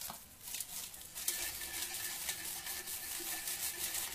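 A utensil stirring a liquid mixture of melted margarine, milk and sugar in a metal pot, scraping the pot in quick, even strokes. A few scattered strokes settle into a steady run about a second in.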